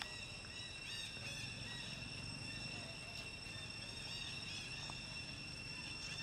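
Steady, high-pitched drone of insects such as crickets or cicadas, with a few faint short chirps over it.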